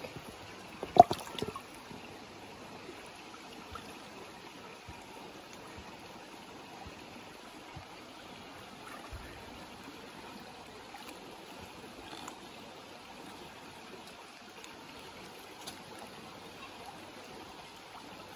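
Shallow creek water trickling steadily over rocks, with a brief sharp clatter about a second in, the loudest sound, and a few faint ticks later on.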